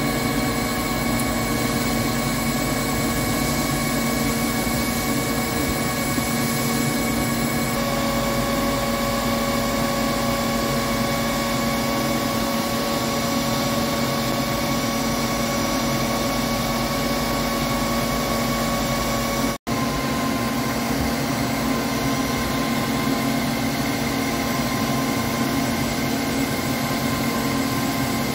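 Heavy Hankook CNC lathe turning a forged-steel spindle with a carbide insert under flood coolant: a steady machine drone with several steady whine tones. The sound cuts out for an instant about two-thirds of the way through and comes back with its tones slightly shifted.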